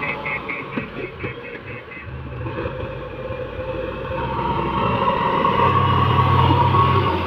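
Heavy diesel engine of an excavator running, getting louder from about halfway as it works harder. A rapid high-pitched ticking fades out over the first two seconds.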